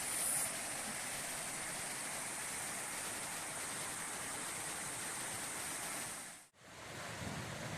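Steady rushing noise of a waterfall. It cuts out suddenly for a moment near the end, then returns with more low rumble.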